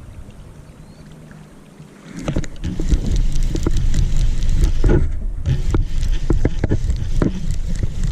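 Loud wind buffeting the microphone, a low rumble that sets in suddenly about two seconds in, with scattered clicks and knocks of handling over it.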